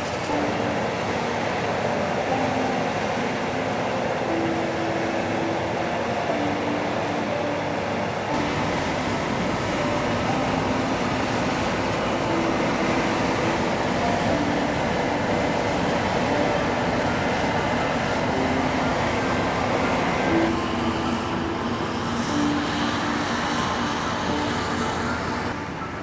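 New Holland CR9090 combine harvester running while cutting oats: a steady diesel engine and threshing drone with faint held tones. The sound shifts abruptly about 8 seconds in and again about 20 seconds in.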